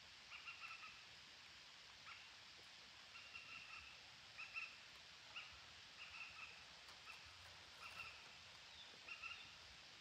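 Parakeets giving faint, short chirping calls, repeated every half second to a second with small gaps, over a low background hiss.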